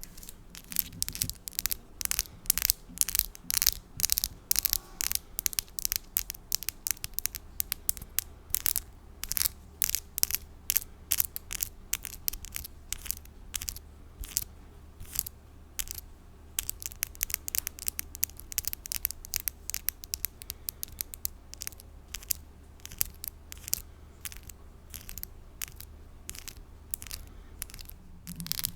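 Long false nails tapping and scratching close to the microphone: quick, crisp, irregular clicks and scratches, several a second, over a faint low hum.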